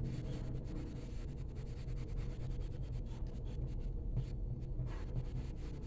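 Colored pencil strokes rubbing and scratching softly on drawing paper, over a steady low hum.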